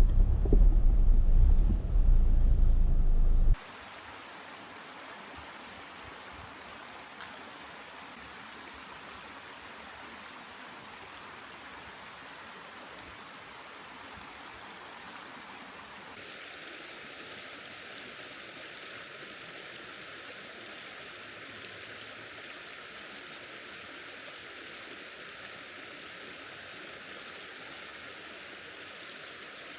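A low vehicle rumble for the first few seconds, cut off abruptly; then a steady hiss of rushing water runs on without a break.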